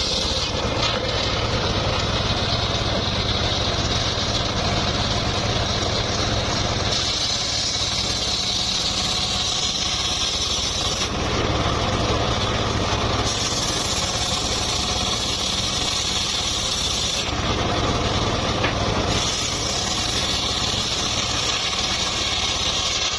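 Engine-driven saw running steadily while sawing mahogany timber, with a constant engine hum. The high cutting noise drops out and returns every few seconds.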